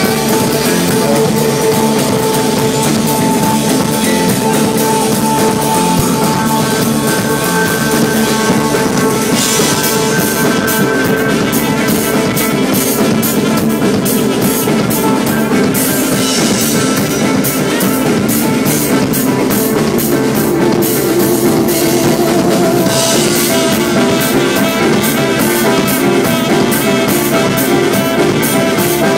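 A live band playing, with electric guitar and drums; the drums' cymbal strikes grow busier about a third of the way in.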